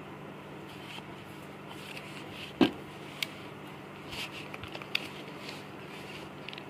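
Polymer pistol parts being handled on a hard plastic case: one sharp knock about two and a half seconds in, then a few lighter clicks and taps as the Glock 19X frame and magazines are moved and set down. A steady low hum sits underneath.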